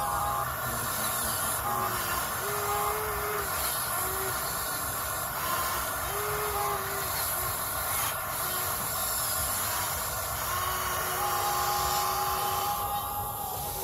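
Radio-controlled construction models working: a steady hiss with short whining motor tones that switch on and off several times, each holding one pitch.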